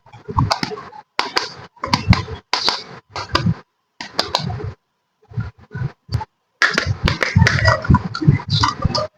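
Small toy kitchen pieces being handled and unpacked: quick clicks, taps and rustles. They come in short bursts broken by brief dead silences.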